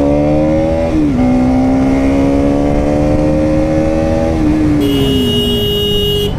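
Bajaj Pulsar NS200's single-cylinder engine pulling away under acceleration, with a gear change about a second in, then revs climbing again and falling off as the throttle eases at about four and a half seconds, over wind rumble on the helmet-mounted camera. A steady horn-like tone sounds for the last second and a half.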